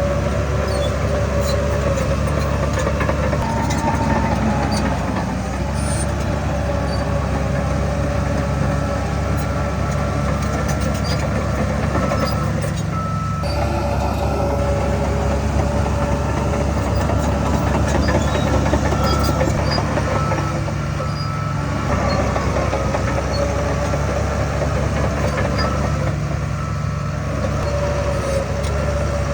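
Heavy diesel earthmoving machinery (bulldozer and dump trucks) running steadily under work, a constant deep engine drone with a few steady higher whining tones above it.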